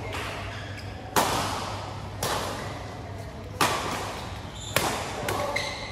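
Badminton rackets striking the shuttlecock in a doubles rally: four sharp hits a second or so apart, each ringing on in the echo of a large hall.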